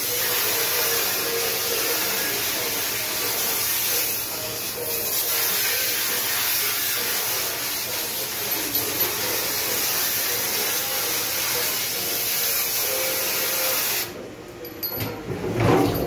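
Commercial pre-rinse spray valve spraying water into a stainless steel dish sink: a steady, loud hiss that cuts off suddenly near the end. A few light knocks follow.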